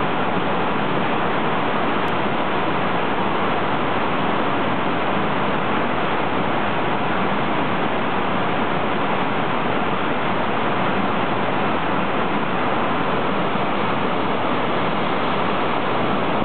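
Water released through a concrete dam's spillway gates, falling into the river gorge below and churning in the plunge pool: a loud, steady rushing with no let-up.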